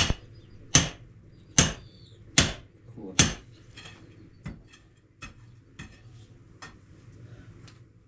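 Hand hammer striking masonry five times in a steady rhythm, a little faster than one blow a second, each a sharp, ringing crack. Several lighter, irregular knocks follow in the second half.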